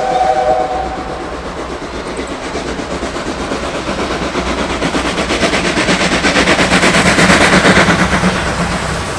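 JNR Class 8620 steam locomotive No. 58654 working hard as it approaches and passes. A steam whistle cuts off about a second in, then fast, rhythmic exhaust chuffs grow steadily louder, loudest just before it goes by.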